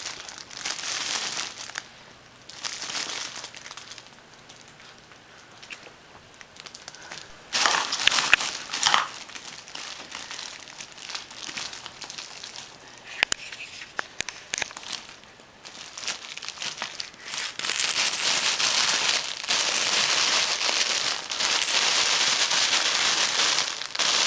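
Crinkly fabric cat tunnel rustling and crackling as a cat crawls in it and paws at it, in scattered bursts at first, then steady, louder crinkling over the last several seconds.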